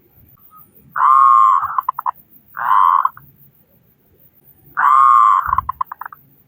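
Zebra dove cooing. There are three phrases: a long mellow note that breaks into a quick stutter of short notes, then a single shorter note, then another long note with a stuttering run.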